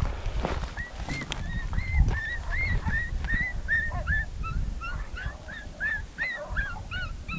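Coyote yipping: a fast run of short, high, arched yips, about three a second, starting a second or two in. Low wind rumble on the microphone underneath.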